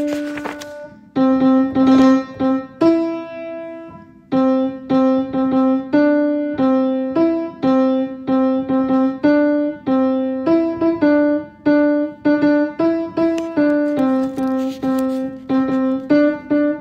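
Piano playing the tenor part of a choral piece alone, one note at a time at a slow pace, each note struck and left to die away.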